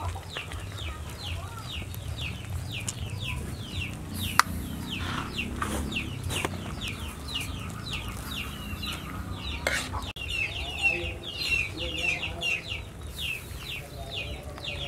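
Chicks peeping steadily, a run of short falling cheeps several a second, with a few sharp clinks of a metal ladle against the pot and bowl. From about ten seconds in, the peeping grows denser and lower clucking joins it.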